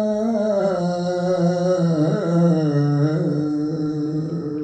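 A man's voice chanting an Urdu noha (mourning elegy), holding one long wavering syllable with no word breaks. The note sinks in pitch in a few steps, dropping lower about two seconds in.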